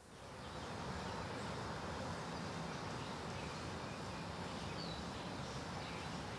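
Steady outdoor background noise, an even hiss that fades in over the first second and then holds level.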